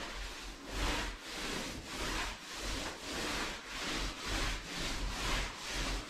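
Paint roller on an extension pole rolled back and forth over a plastered wall, spreading wall paint: an even rubbing stroke about twice a second.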